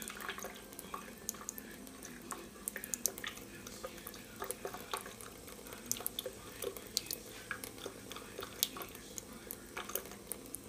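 Thin stream of water from a kitchen faucet falling into a stainless steel sink, a steady trickle broken by many sharp, irregular drip-like ticks and splashes.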